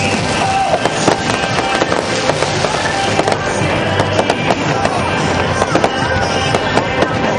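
Aerial fireworks shells bursting in quick succession: a continuous run of bangs and crackles with no pause.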